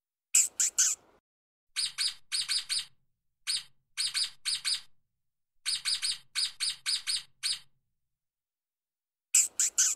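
Stoat (ermine) chirping: short, high chirps in quick clusters of two to six, separated by silent pauses, with a louder burst of three near the start and again near the end.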